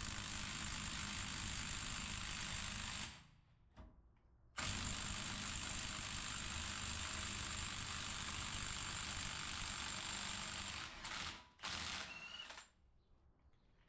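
Cordless impact wrench running on a freshly swapped battery, hammering at a tight fastener in two long runs of about three and six seconds, then a few short bursts near the end.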